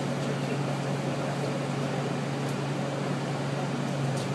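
Steady low hum inside a bus with its engine running, with a couple of faint clicks near the middle and the end.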